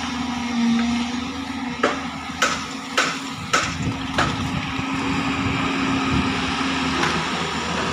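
JCB tracked excavator's diesel engine running steadily as it digs. A run of five sharp knocks, a little over half a second apart, comes in the middle, as the bucket works through earth and stones.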